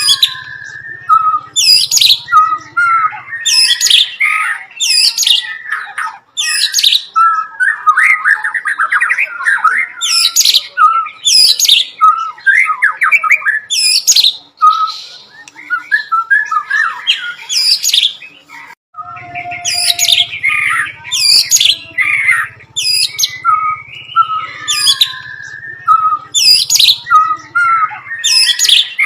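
White-rumped shama (murai batu) singing a long run of sharp, high down-slurred notes about once a second, mixed with fast twittering phrases. This is the bar-winged prinia (ciblek) song it has learned and is reproducing.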